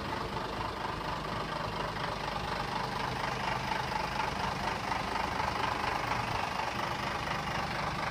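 Vintage Scania 80-series tractor unit's diesel engine idling steadily.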